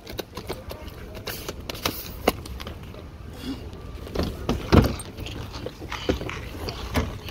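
Luggage handling at a car trunk: a soft-sided suitcase being grabbed and moved, giving a string of irregular knocks, clicks and rustles with a few heavier thumps, the loudest a little under five seconds in.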